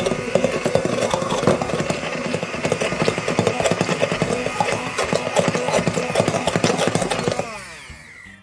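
Hand-held immersion blender running in a glass bowl of pancake batter, its blade churning the mix with a rapid clatter. Near the end it is switched off and the motor winds down with a falling pitch.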